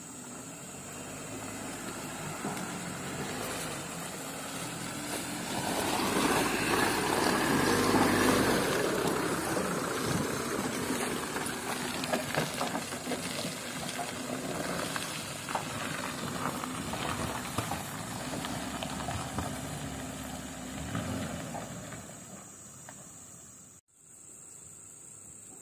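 Toyota Hilux 4x4 pickup's engine pulling a heavy load of oil palm fruit bunches through a muddy track, growing loud as the truck passes close about six to nine seconds in, then fading as it moves away. Near the end the sound drops away suddenly to a quieter background.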